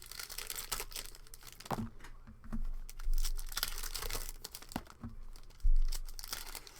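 Foil trading-card pack wrappers being torn open and crinkled, with the cards handled and a few dull knocks on the table.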